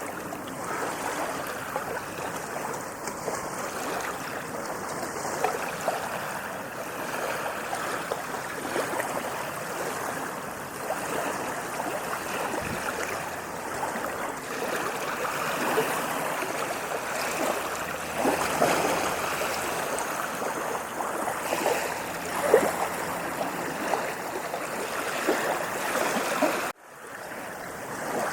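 Waves washing onto a sandy beach, a steady rushing wash that swells slightly at times. The sound cuts out for a moment near the end, then resumes.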